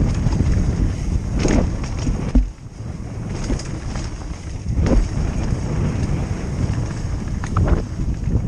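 Wind buffeting a helmet-mounted camera and tyre rumble as a mountain bike descends a dirt singletrack at speed, with several sharp knocks and clatters as the bike hits bumps.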